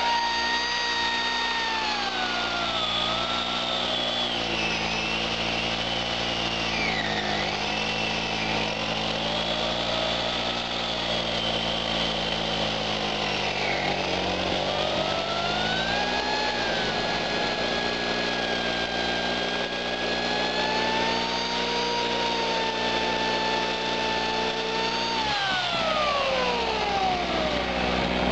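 Electric chainsaw powered by a small two-stroke 800-watt portable generator, cutting wood. The saw's motor whine and the generator's engine sag in pitch under the cutting load and climb back as the generator throttles up to keep up. Near the end the saw is let off and its whine falls away.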